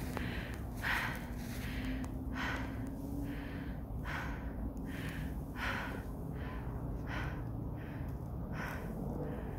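A person breathing hard and heavily while climbing uphill, out of breath, with a breath about every second.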